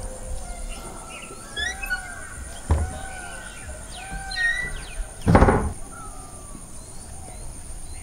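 Birds chirping and calling over a steady high-pitched whine, with a sharp knock about a third of the way in and a louder thud just past the middle.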